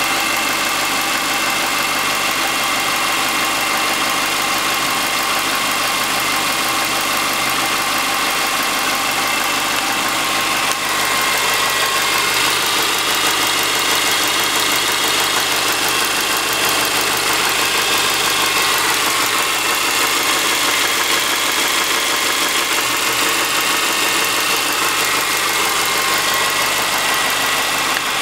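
A 2003 Subaru Forester's flat-four boxer engine idling steadily with a fast, even knock from piston slap, about ten minutes into warm-up in a −10 °C garage. It gets slightly louder about eleven seconds in.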